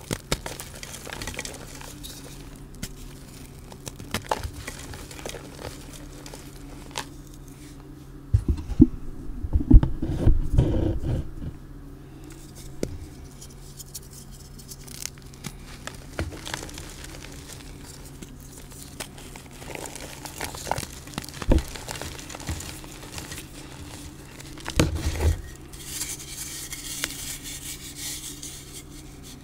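Hands crushing and crumbling blocks of reformed, glitter-coated gym chalk: soft powdery crunches and crackles, with a loud burst of crushing, with deep thuds, about nine to eleven seconds in and another shorter one near the end.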